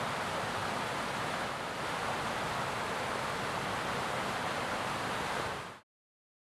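Steady rush of water pouring over a small stepped weir in a river channel, cutting off abruptly near the end.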